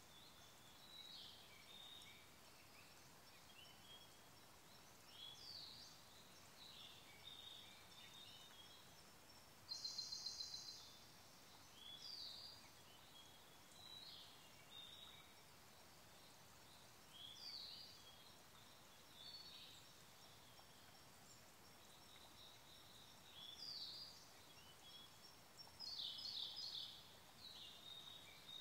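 Siberian blue robin and other songbirds singing faintly: a string of short high chirps and slurred notes every second or two, with a rapid buzzy trill about ten seconds in and another near the end.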